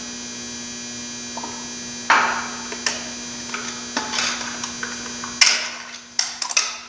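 Steel and friction clutch plates of a Ford E4OD automatic transmission sliding out and clinking against each other, heard as a few short scraping rushes and light clicks over a steady electrical hum.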